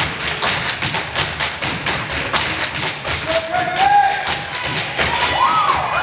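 A dance performance's fast, steady thumping beat, several strikes a second. High whoops rise over it from about three seconds in.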